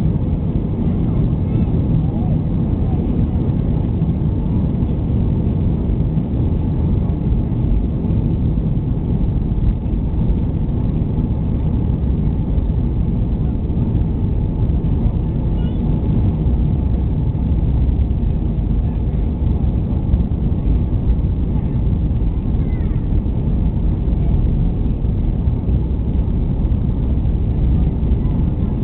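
Cabin noise of an Airbus A319 on its take-off run: a steady, loud, low rumble of the jet engines at take-off power mixed with the roll of the wheels on the runway.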